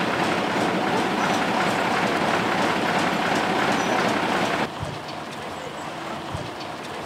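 A steady rushing hiss, like rain or traffic noise, loud at first and then dropping suddenly to a quieter hiss about four and a half seconds in.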